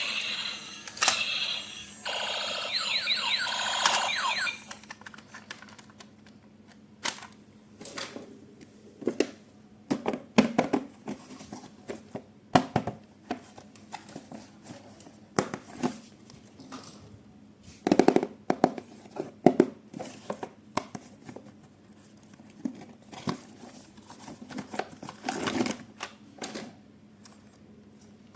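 Packaging and plastic toy parts being handled: dense rustling and crinkling for the first four seconds or so, then scattered clicks, taps and knocks at irregular intervals.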